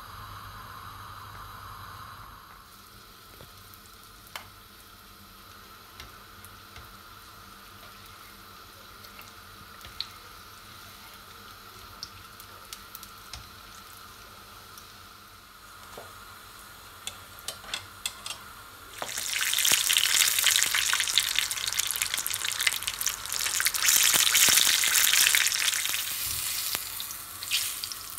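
Battered chillies deep-frying in hot oil in a small pan. A faint sizzle with scattered pops swells, about two-thirds of the way through, into a loud, spitting sizzle that lasts several seconds and then eases.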